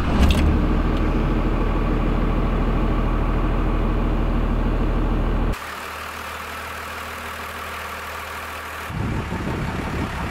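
1996 Dodge Ram's 5.9-litre Cummins inline-six turbodiesel idling just after starting, on fresh oil with a pre-filled filter. It is loud with a deep rumble at first, drops abruptly to a quieter, thinner idle about five and a half seconds in, and changes again near the end.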